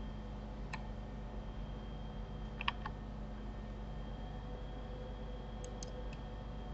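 A few sparse clicks of a computer mouse and keyboard, the loudest a quick double click about two and a half seconds in, with a couple more near the end, over a steady low electrical hum.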